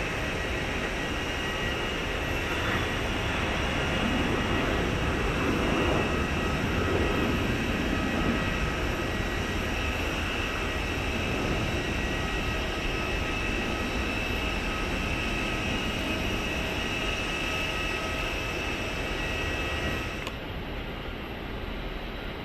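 Steady jet whine from aircraft at an airport apron: several high, even tones over a low rumble. The sound drops and changes abruptly near the end.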